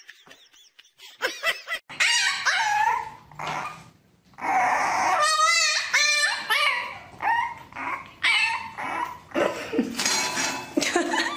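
A puppy yapping and yelping in short, high-pitched calls, a few with a wavering pitch, coming in a steady run from about four seconds in.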